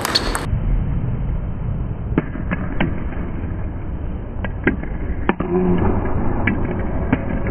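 Table tennis rally: sharp clicks of the ball off the paddles and the table, coming singly and in quick pairs, over a steady low rumble.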